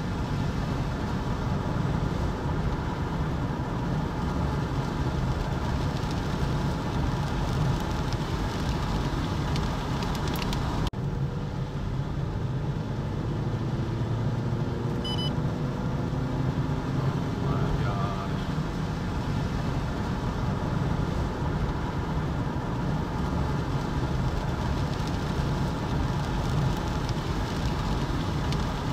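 Steady rumble of road and engine noise from a car driving on a highway.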